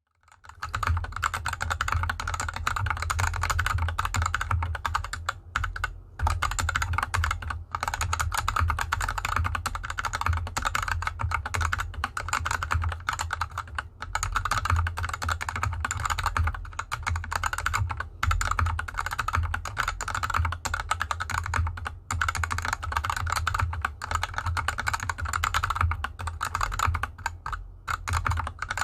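Fast, continuous typing on a GK64X mechanical keyboard with unlubricated Gateron Yellow linear switches and DSA keycaps, the keyboard resting on felt fabric. The keystrokes come several per second, broken by a few brief pauses.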